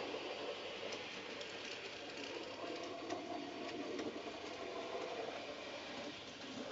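Steady low whirring rumble of a model railway in operation.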